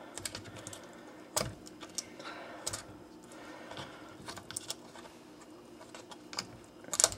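Fingers working at the plastic spout cap of a chicken broth carton: scattered small plastic clicks and scratches, the sharpest about a second and a half in and just before the end.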